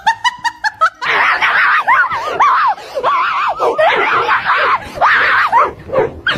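A woman screaming and laughing in repeated shrieking bursts, her voice swooping up and down in pitch, as a dog tugs at the sandal on her foot.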